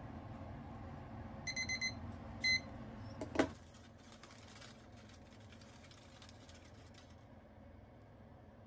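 Digital kitchen timer beeping: a quick run of four high beeps, then a single beep, marking the end of the 10–20 second hot-water dip of the flower stems. A sharp knock follows a second later and is the loudest sound.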